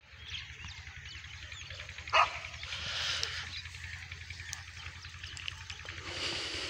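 A dog barks once, loud and short, about two seconds in, while birds chirp around it.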